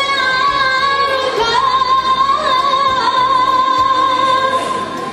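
Song accompanying a fan dance, with a woman's voice holding one long note that wavers slightly partway through.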